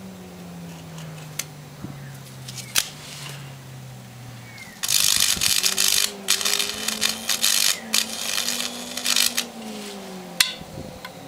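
High-voltage arc from a microwave oven transformer crackling and buzzing loudly at the end of a fluorescent tube, in ragged stretches from about five seconds in, after a few sharp snaps. Underneath, the vacuum cleaner wired in series as a ballast hums and whizzes, its pitch wavering as it takes power.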